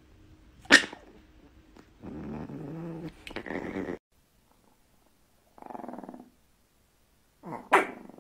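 Long-haired Chihuahua growling and snarling in short bouts, a low rumbling growl in the middle then two briefer growls near the end. A sharp click sounds about a second in and again near the end.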